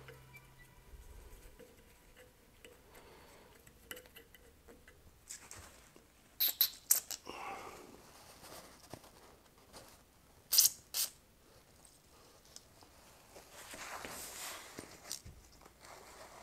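Short hisses of an aerosol spray can fired through a straw at a motor pulley's hub: three quick bursts, then two more a few seconds later, then a longer, softer spray near the end. Before them, faint scratching and small taps of a pick working in the pulley's set-screw.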